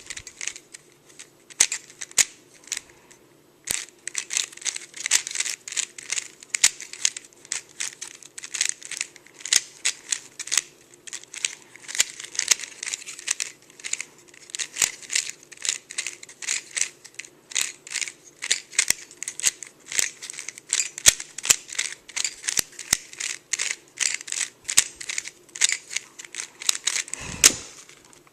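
Dayan GuHong 3x3x3 speed cube being turned fast by hand during a solve: a rapid, uneven run of plastic clicks and clacks as the layers snap round, sparse for the first few seconds and then dense. A low thump near the end.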